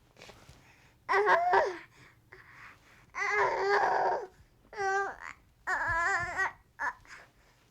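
Baby crying in frustration: a run of short fussing cries and whimpers in bursts of about half a second to a second, with brief pauses between them, starting about a second in.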